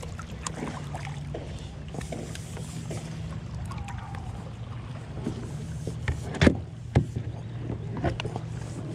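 Kayak paddling: paddle blades working the water, with a few sharp knocks of the paddle against the kayak late on, over a steady low hum.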